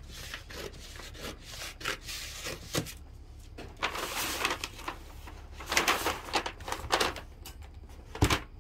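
Scissors snipping through brown pattern paper in a series of short cuts, then the paper sheets rustling as they are lifted and slid across the table, with one heavier thump near the end.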